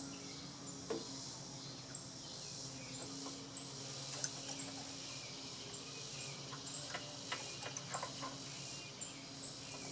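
Faint scattered metal clicks and ticks from hand tools working the intake valve rocker adjuster of a small four-stroke engine, which is being tightened against a feeler gauge. Underneath is a steady low hum and a high hiss.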